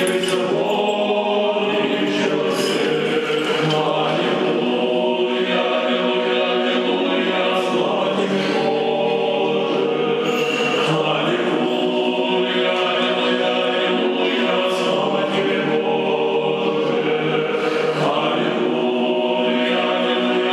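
Church choir singing unaccompanied Orthodox liturgical chant, held chords that continue without pause.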